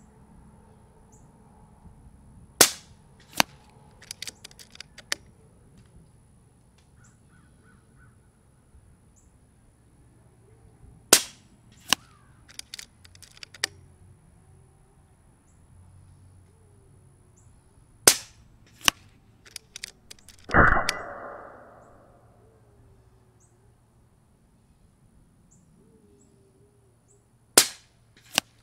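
Moderated AirMaks Katran Compact .22 regulated PCP air rifle firing four shots, several seconds apart, each sharp crack followed under a second later by a fainter smack of the pellet hitting the 100-yard target. Small clicks of the side lever being cycled fall between shots. About two-thirds in comes a loud thump with a short trailing rush.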